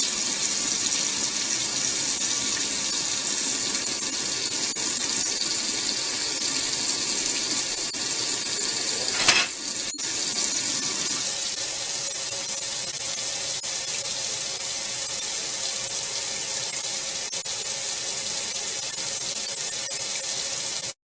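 Kitchen faucet running water into the sink and down the newly resealed drain, to test the trap for leaks. A sharp click comes just before the halfway point, after which the water sound thins and a faint steady tone runs under it.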